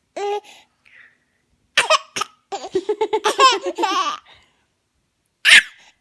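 Baby laughing in a fast string of short pitched bursts lasting about a second and a half, with sudden sharp hiccup-like catches before the laughing and again near the end.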